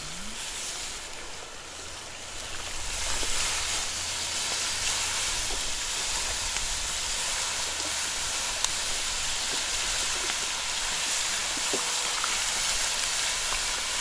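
Steady hissing that grows louder about three seconds in, with a few faint crackles and a low rumble underneath: a dutch oven of goulash sizzling and steaming over a campfire.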